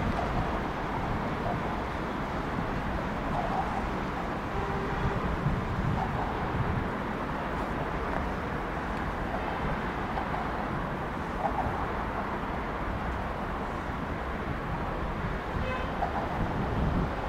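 Steady low rumble of vehicle noise, with wind buffeting the microphone.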